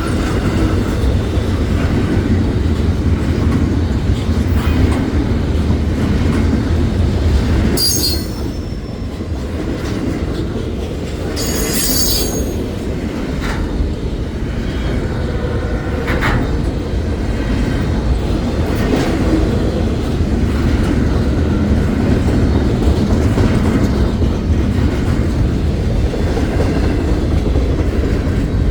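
Intermodal freight train's cars rolling past with a steady, loud rumble and rattle of wheels on rail, and two brief high wheel squeals partway through.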